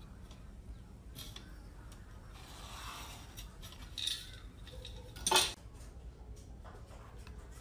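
Hand tools being handled on a wooden board: a pencil scratching along a metal straightedge, light rubbing and scraping, and a short metallic clatter about five and a half seconds in, the loudest sound, as the metal straightedge and tools are moved.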